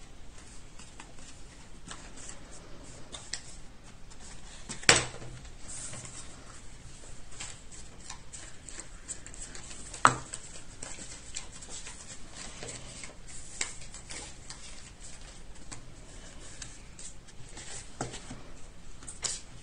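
Paper and cardstock being handled on a craft table: small rustles, clicks and taps, with two sharp knocks about five and ten seconds in.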